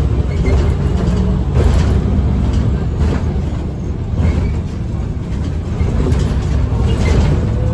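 Irisbus Agora Line city bus with a Voith automatic gearbox, heard from inside the passenger cabin while under way: the engine and drivetrain run with a steady low rumble. A few short knocks or rattles come through, about two and three seconds in and again a little after four.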